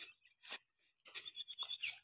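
Footsteps in sandals crunching on loose gravel and river stones, about two steps a second, with a denser scuffing stretch in the second half.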